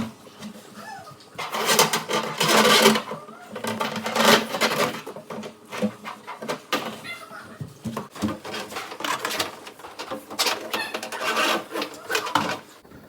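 Irregular scraping, rustling and knocks as a dishwasher is worked into its cabinet opening and its hoses are pushed through the cabinet wall.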